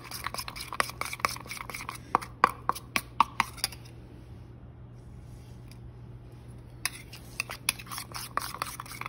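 Metal spoon clinking and scraping against a small stainless steel bowl as it stirs a thick paste of Critical Care powder and water, in quick uneven clicks. The stirring stops for about three seconds around the middle, then starts again.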